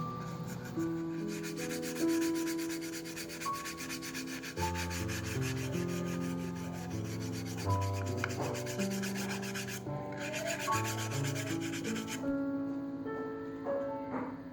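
Fast, even rubbing strokes like sanding, over background music. The rubbing stops about ten seconds in, starts again for a second or so, and stops near twelve seconds.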